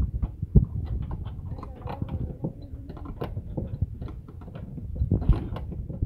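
Small irregular metallic clicks, taps and scrapes as the spring-loaded clamp latch on a microwave antenna radome is handled, over a low rumbling background.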